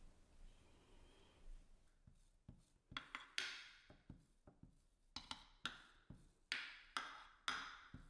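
Back of a metal spoon pressing and smoothing a sticky date-and-nut mixture into a glass dish: a run of short scrapes and taps, starting about two seconds in.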